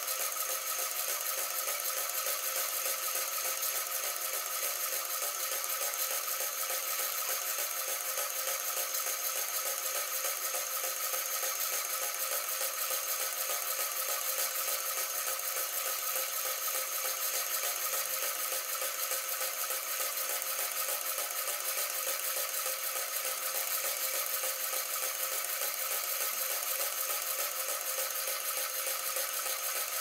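NEMA 17 stepper motor turning the belt-driven taping ring of a wire-harness wrapping machine, running steadily: a continuous mechanical whir with a faint steady whine and fine rapid ticking.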